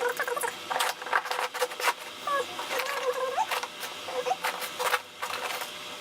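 Sharp clicks and taps from handling the stripped wires of the network cable, with short, repeated pitched calls behind them.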